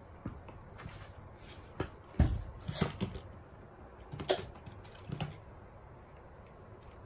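Cats play-fighting: scattered thuds and scrabbling of paws and bodies on the floor, with the loudest bump a little after two seconds in and a few more up to about five seconds.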